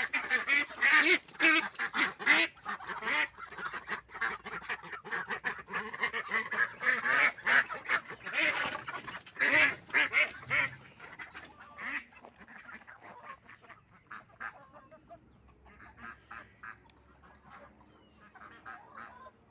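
A flock of white domestic ducks quacking loudly and continuously. About twelve seconds in, the calling drops away to fainter, scattered calls.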